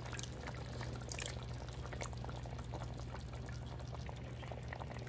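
Canned tomato sauce pouring from a can into a soup pot of pork neck bones, faint wet pouring and small ticks, over a steady low hum.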